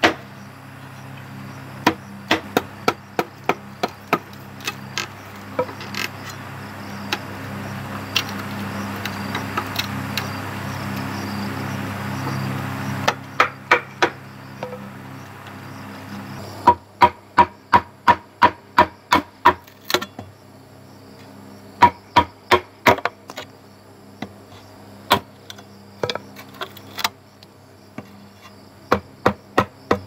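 Sharp wooden knocks as a board used as a mallet drives a machete blade into a standing green bamboo pole, cutting out a square opening. The strikes come in quick runs of about three or four a second, with pauses between runs.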